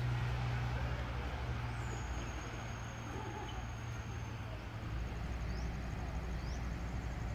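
Low, steady hum of a diesel railway engine running at a distance. A thin, high, steady tone sounds over it from about two seconds in, broken by a few short chirps near the end.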